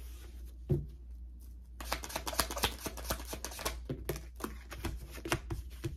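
Tarot card deck being shuffled by hand: one sharp tap a little under a second in, then from about two seconds in a dense run of quick card slaps and rustling that goes on almost to the end.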